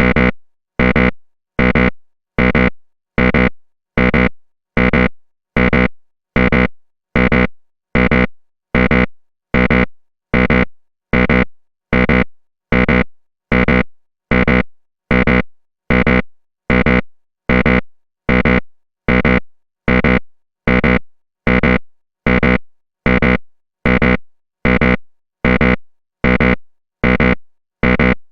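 A 'wrong answer' buzzer sound effect played on a loop: the same short synthesized buzz repeats evenly, about one every 0.8 seconds, each starting loud and fading away quickly.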